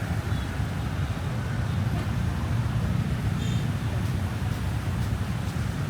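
Steady outdoor ambience: a constant low rumble with faint voices and, about three and a half seconds in, a brief high-pitched tone.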